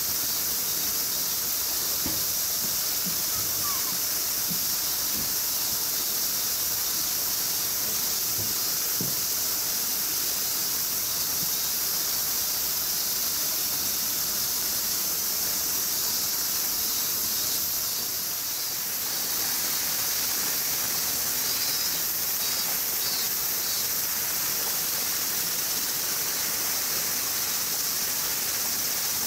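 Steady, high-pitched chorus of summer cicadas, with a few faint low knocks in the first few seconds.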